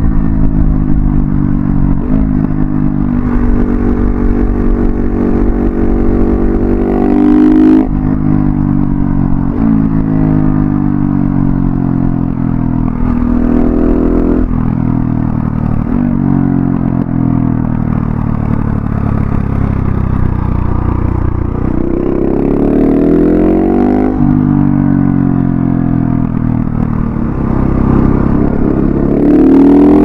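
A KTM 690 SMC R's single-cylinder engine through an Arrow Thunder slip-on exhaust with its dB-killer fitted, heard from the rider's backpack while riding. The revs climb and fall again and again, with the pitch jumping at several gear changes, and the engine pulls hard to higher revs near the end.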